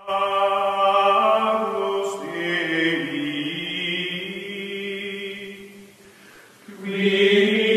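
Choir voices holding long sustained chords as background music. The singing fades to a low ebb about six seconds in, then swells back up near the end.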